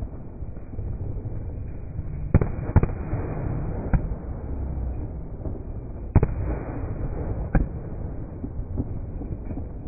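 Aerial fireworks bursting overhead: five sharp bangs, two close together about two seconds in, one a second later, and two more in the second half, over a continuous low rumble.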